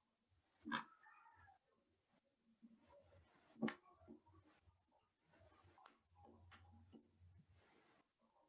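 Faint computer mouse clicks at the desk, with two sharper, louder clicks about a second in and about three and a half seconds in; otherwise near silence.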